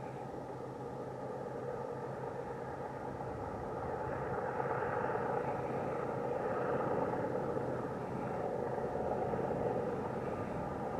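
Freight train rolling by, a steady rumble with a few held tones that grows louder about four seconds in.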